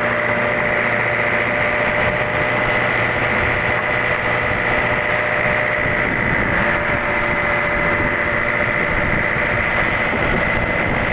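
Fishing boat's inboard engine running steadily under way, an even drone with a constant high whine.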